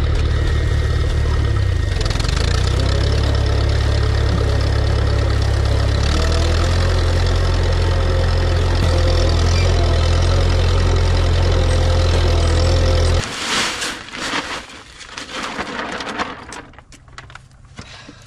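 Massey Ferguson 35 tractor engine running steadily, its note shifting slightly a couple of times. It cuts off abruptly about two-thirds of the way through, leaving fainter, uneven noise.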